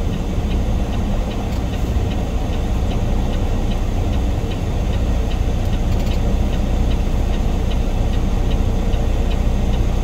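Semi-truck diesel engine idling, a steady low rumble heard from inside the cab, with a regular light ticking about twice a second.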